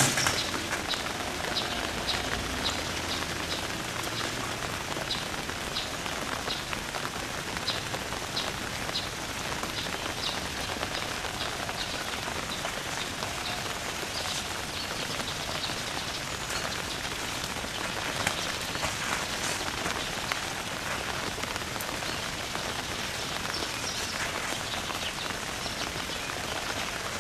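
Steady rain falling, an even hiss throughout. Short high ticks repeat about twice a second over the first third.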